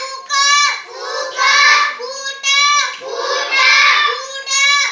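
A girl reading aloud a line of English words with the 'oo' sound in a high, sing-song voice, drawing out each word with short pauses between them, about one word a second.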